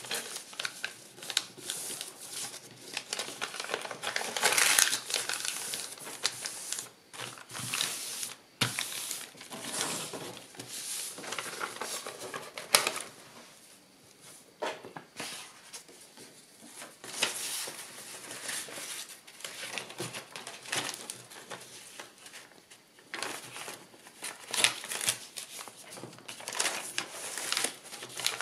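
Kraft paper rustling and crinkling as it is folded and pressed by hand around paperboard, in uneven bursts with a few sharp clicks, the loudest about halfway through.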